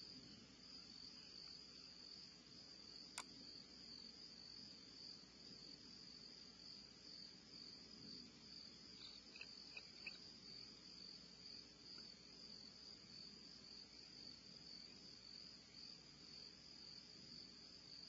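Faint, steady, high chirring of crickets, with a single sharp click about three seconds in and a few faint short ticks around ten seconds in.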